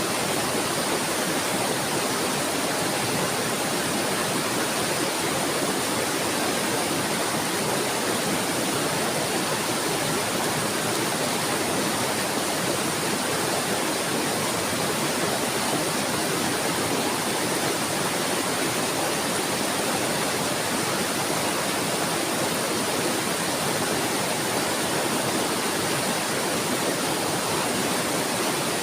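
Flowing water, a steady, unbroken rush with no change in level.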